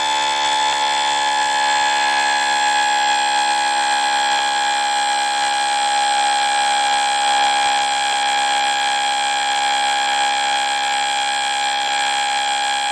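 Emergency alert system earthquake alarm: a loud, steady electronic tone made of many tones at once, drifting slightly down in pitch over the first few seconds, then holding level.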